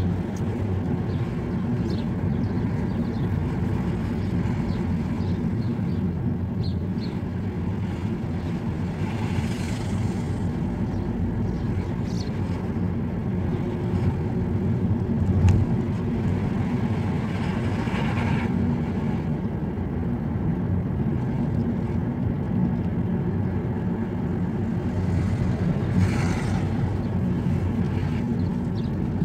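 Road and engine noise inside a moving car's cabin: a steady low rumble, with a short thump about halfway through and a few brief hisses.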